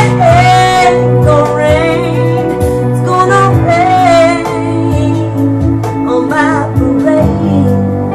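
A woman singing a slow ballad, holding notes with vibrato, over a backing track with steady bass notes and a slow, even beat.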